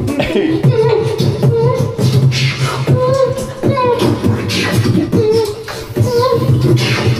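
A person beatboxing: a fast, continuous run of mouth-made drum clicks and bass hits, with a pitched vocal line bending over them.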